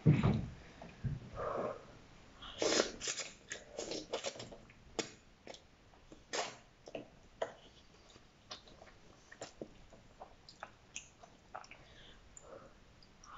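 A person slurping and chewing noodles close to the microphone: a series of short slurps and wet mouth sounds with small sharp clicks between them.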